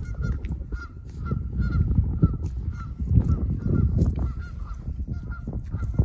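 Geese honking repeatedly, short calls about two to three a second, over gusts of wind rumbling on the microphone.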